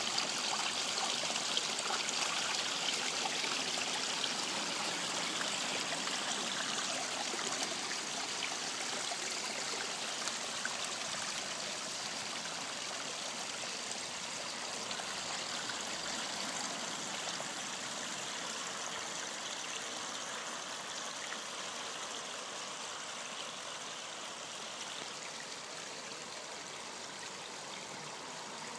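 Water from a small garden waterfall spilling over a stone slab into a koi pond: a steady splashing trickle that grows gradually quieter.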